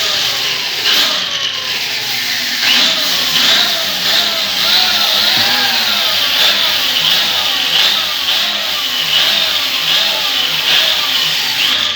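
Glass door squeaking over and over as it is swung, each squeak rising and then falling in pitch, about two a second.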